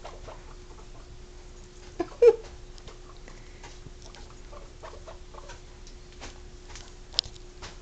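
Guinea pigs moving about on fleece bedding: faint scuffling and scattered clicks, with a short pitched squeak about two seconds in and a sharp click near the end. A faint steady hum runs underneath.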